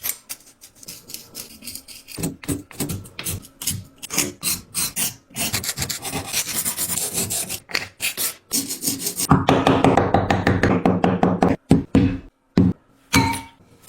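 Hands rubbing and scratching at objects: a run of short scraping strokes and taps, with a denser, louder stretch of rasping about two-thirds of the way through.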